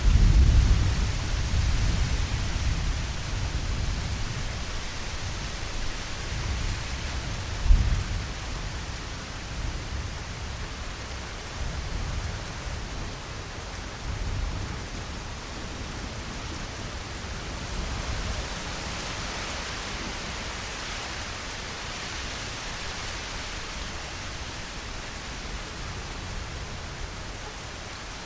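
Thunderstorm: a steady hiss of rain with rolls of thunder. A loud rumble fades over the first few seconds, a sharper clap comes about eight seconds in, and fainter rumbles follow before only the rain remains.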